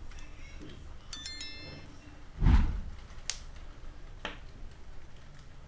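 Handling of a crocheted pouch with metal fittings: a short, bright metallic ping about a second in, a heavier low thump at about two and a half seconds, then a couple of light clicks.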